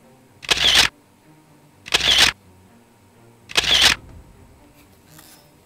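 Camera shutter sound firing three times, about a second and a half apart, as thumbnail photos are taken.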